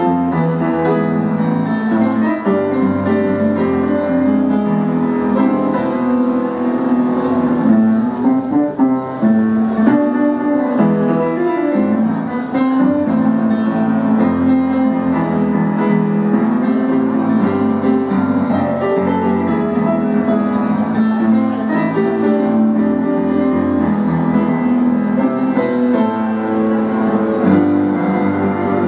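Keyboard played live with a piano sound: continuous chords under a moving melody, steady in level throughout.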